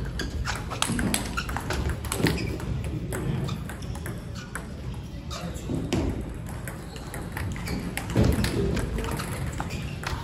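Table tennis rallies: the celluloid ball clicks sharply off rubber bats and bounces off the table, hit after hit, with a short break between points partway through.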